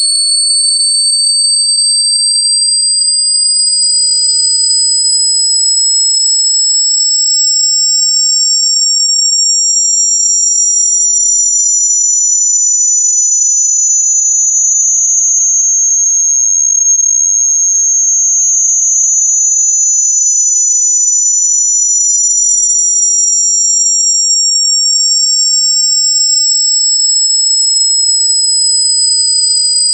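Two piercing, high-pitched electronic tones sliding slowly in opposite directions, one falling and one rising. They meet about halfway through, cross, and draw apart again: a synthesized 'unbearable noise' sound effect.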